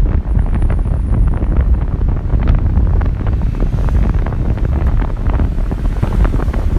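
Heavy wind buffeting on a phone microphone in a moving car, over a steady low rumble of road and engine noise.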